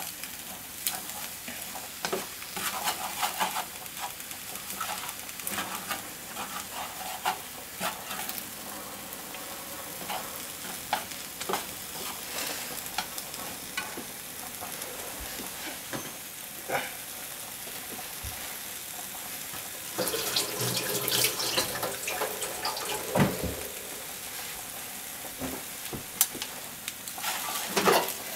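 Macaroni, onion, ham and corn sizzling in a frying pan while being stir-fried with wooden chopsticks: a steady frying hiss with irregular clicks and scrapes of the chopsticks against the pan, louder and busier about two-thirds of the way in.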